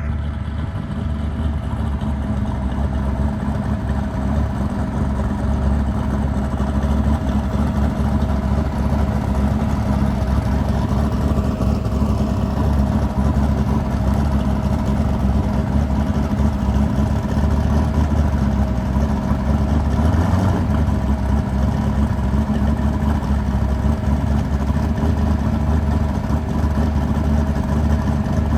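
Drag car's engine running steadily at idle.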